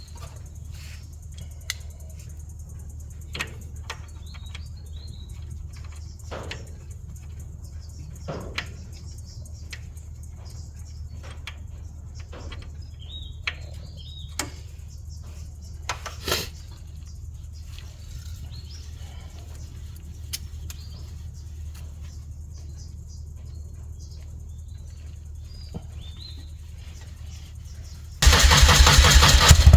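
Scattered light clicks and a few bird chirps over a low steady hum. Near the end, a BMW R100RS flat-twin motorcycle engine comes in abruptly and loudly, running.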